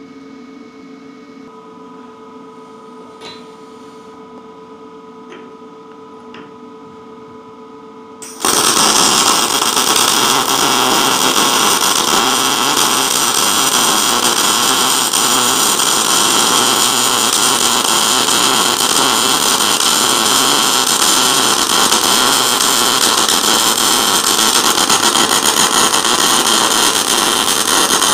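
A low steady hum for about eight seconds, then a Lincoln 210 MP MIG welder's arc strikes suddenly and runs for about twenty seconds as one continuous, even crackling hiss. The welder is running .035 wire under 75/25 argon-CO2 gas, set for quarter-inch steel.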